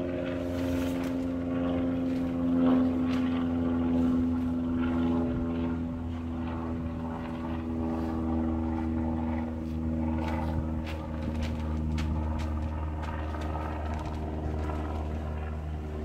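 An engine running steadily at a constant speed, with scattered clicks and knocks over the second half.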